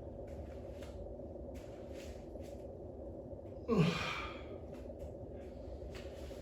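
A man breathing hard through repeated exertion breaths during a set of squats, with one louder sigh-like groan that falls in pitch about four seconds in.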